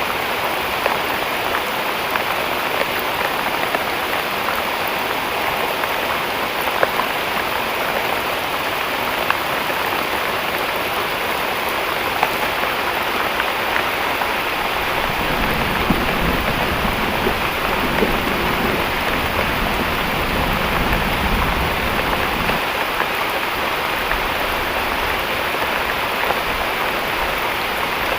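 Heavy rain falling steadily, with scattered drip ticks. For several seconds past the middle a deeper rumble joins in.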